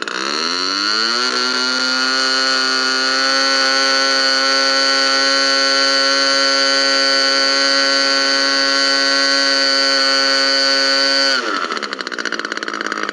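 A GMS 120 two-stroke model aircraft engine swinging a 16x8 Master Airscrew propeller. It is throttled up over the first second or so, held steady at full throttle at about 8,200 rpm, and throttled back near the end.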